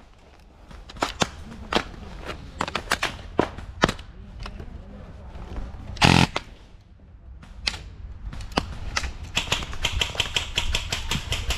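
Airsoft gunfire at close range: scattered sharp cracks of BBs and shots hitting wooden pallets and tarp. About six seconds in there is one loud short burst from the DSG airsoft rifle. Near the end comes a fast run of snapping shots or hits, several a second.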